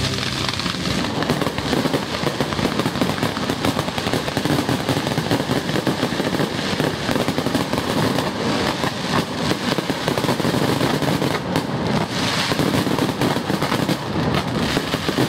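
Fireworks display going off: a dense, unbroken crackle of many rapid pops and bangs from bursting shells.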